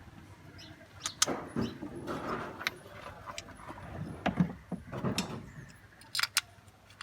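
Hand work on replacement ignition coils and engine-bay parts: a string of irregular sharp clicks, knocks and light clattering of plastic and metal, with rustling in between.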